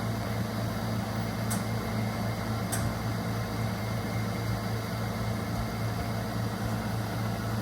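Steady low hum with a constant hiss, and two faint ticks about a second and a half and three seconds in.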